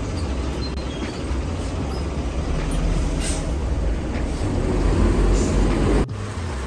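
Steady low rumble of a road vehicle, with a short hiss about three seconds in. The sound breaks off abruptly about six seconds in and a similar rumble resumes.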